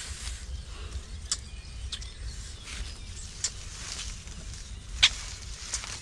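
Footsteps and rustling leaves on a jungle dirt path: scattered small crackles and snaps, with one sharper snap about five seconds in, over a low steady rumble.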